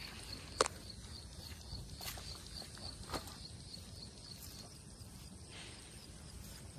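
Outdoor ambience: a high-pitched chirping repeating steadily about four times a second, over a low rumble, with three sharp clicks, the loudest about half a second in.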